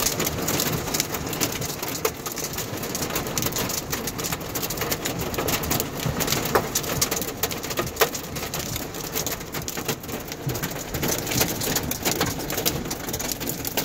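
Heavy wind-driven rain and hail pelting a car: a dense, steady hiss scattered with many sharp clicks of hailstones striking.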